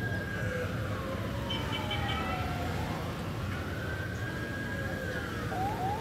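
Emergency vehicle siren wailing in slow rising and falling sweeps, with a few quick short rising whoops near the end, over a steady low rumble of city traffic.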